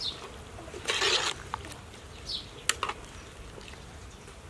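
Metal ladle stirring soup in an aluminium pot: a few sharp clinks against the pot and a short scraping, splashy rush about a second in. A bird gives short falling chirps twice.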